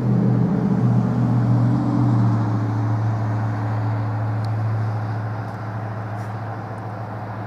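A motor vehicle engine running nearby: a steady low hum that drops a little in pitch about two seconds in, then slowly fades.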